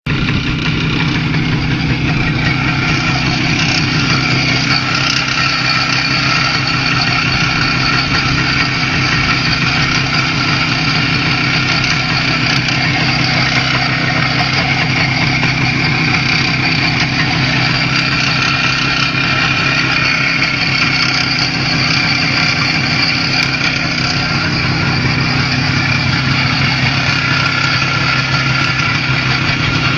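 IZh Jupiter 5's air-cooled two-stroke twin-cylinder engine idling steadily at working temperature, during running-in after a supposed rebuild. The owner hears a strange knock from the left cylinder.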